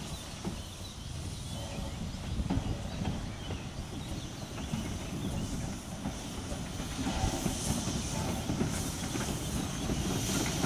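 Narrow-gauge steam train running, its wheels clattering on the rails with steam hissing; it grows gradually louder toward the end.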